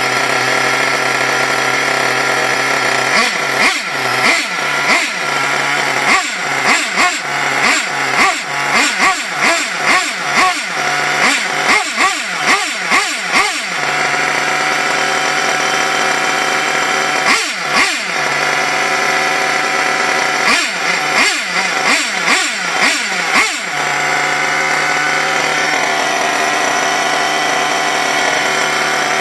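Small nitro glow-plug engine of an HPI Lightning 2 RC truck idling, then blipped on the throttle over and over, each rev rising and dropping quickly, in one run of about ten seconds and a second shorter run, before settling back to a steady idle. It is the freshly rebuilt engine's first run, still unsettled and awaiting adjustment.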